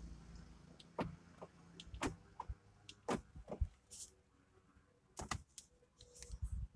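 A scattered series of sharp clicks and knocks inside a car cabin, about seven in all, over a faint low hum, as the car's controls are handled while it is switched off.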